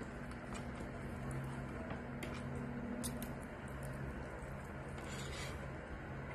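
Fingers tearing at crispy pata (deep-fried pork leg), with a few soft crackles and clicks, over a steady low hum.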